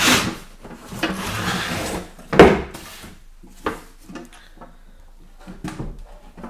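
Cardboard box scraping and sliding as a heavy metal consumer unit is pulled out of it, with a loud thud about two and a half seconds in and a few lighter knocks as the unit is handled and set down on a hard worktop.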